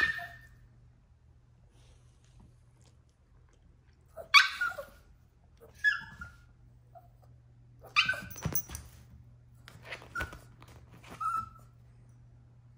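Yorkshire Terrier puppy yapping in a tantrum: short high-pitched barks in about six separate bursts with pauses between, the loudest at the very start and about four seconds in.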